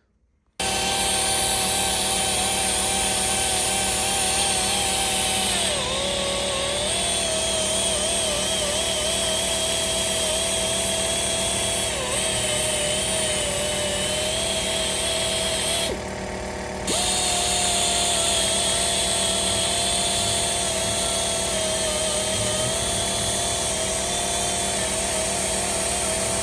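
A high-speed rotary grinder porting and polishing a VR6 cylinder head: a steady high-pitched whine whose pitch sags now and then as the bit bites into the metal, with a brief drop about two-thirds of the way through.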